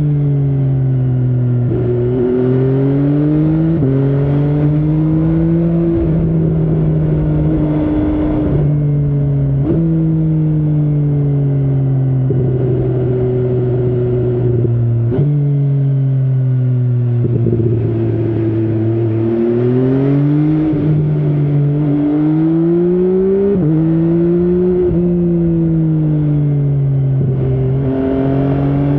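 MV Agusta Brutale 800's three-cylinder engine under way, its note rising as it pulls through the gears and dropping suddenly at each shift, about a dozen times. Some stretches fall away as the throttle closes.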